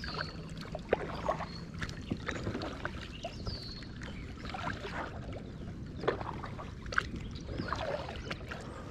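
Kayak paddling: a double-bladed paddle dipping and pulling through calm water, with splashes and drips from the blades and a few light knocks about a second in and again near six and seven seconds.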